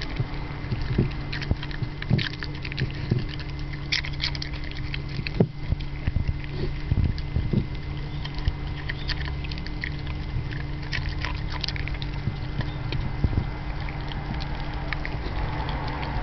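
Jack Russell terrier eating from a ceramic bowl: irregular wet chewing and licking, with tongue and teeth clicking against the bowl, over a steady low hum.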